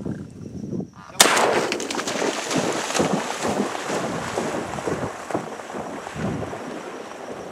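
Sudden loud splash about a second in, then several seconds of continuous, irregular splashing through water that slowly fades as a retrieving dog heads out across the marsh.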